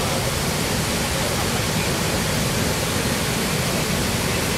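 Large waterfall in flood, swollen with brown floodwater, pouring over a broad cliff edge: a steady, dense rush of water that does not let up.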